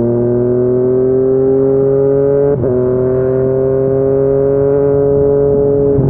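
Yamaha MT-09's inline three-cylinder engine through a Yoshimura R55 slip-on exhaust, pulling steadily with pitch slowly rising. About two and a half seconds in, a quick upshift briefly cuts the note and drops the pitch, and it climbs again.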